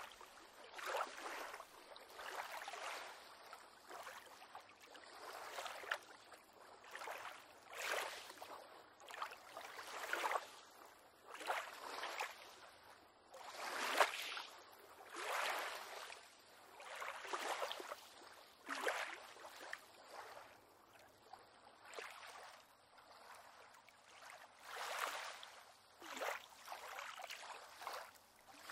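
Small waves lapping and sloshing against a pier on calm water, in irregular splashes every second or two, with one stronger splash about halfway through.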